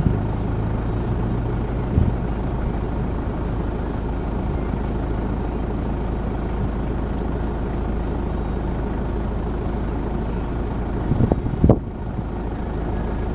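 Vehicle engine idling with a steady low rumble, with a few brief knocks near the end.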